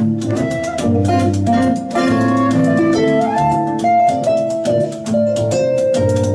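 Live folk band playing an instrumental passage: a concert flute carries the melody in held notes over plucked strings and a steady beat of hand percussion.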